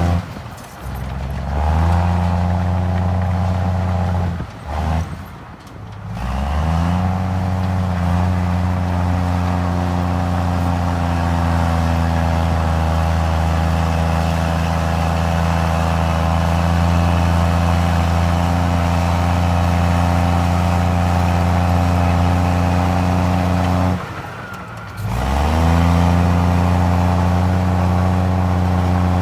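Komatsu D53 crawler bulldozer's diesel engine running hard under steady load. The sound drops sharply twice, about five seconds in and again near the end, and each time the engine note rises back up as it picks up again.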